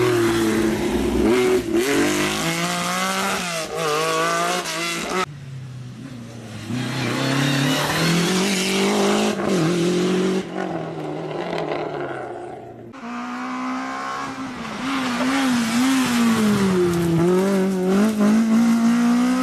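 Historic rally car engines revving hard and changing gear as they drive past, over several clips that cut abruptly about five and thirteen seconds in.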